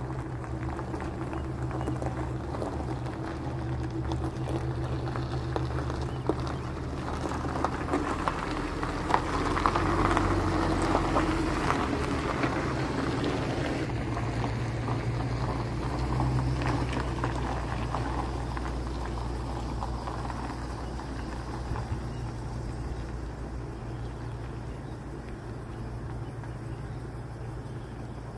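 A vehicle engine running steadily, louder around ten seconds in and again briefly around sixteen seconds, then easing off toward the end.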